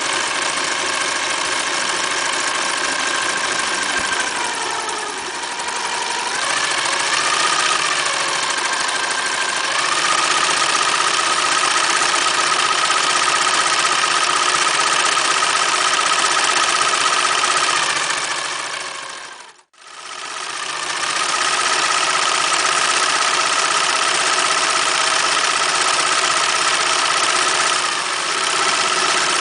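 Singer Futura 1000 electric sewing machine running, its motor whine dipping in pitch about five seconds in and then holding steady. The sound drops out briefly about two-thirds of the way through and the machine runs on again.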